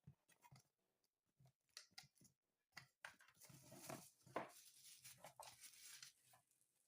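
Faint handling noises: scattered small clicks, then about three seconds in a soft stretch of rustling with light taps, as of packaging being handled and opened.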